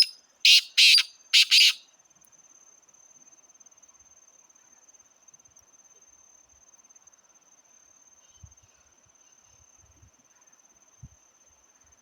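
Black francolin calling: a quick phrase of three loud, harsh grating notes in under two seconds, followed by quiet.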